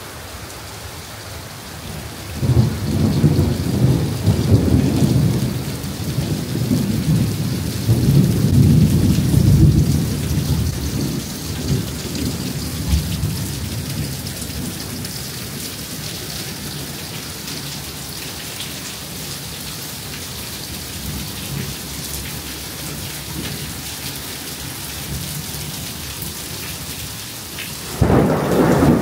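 Heavy rain falling steadily, with a long roll of thunder that starts a few seconds in, rumbles in two swells and fades away over about ten seconds. Another loud rumble of thunder breaks in suddenly near the end.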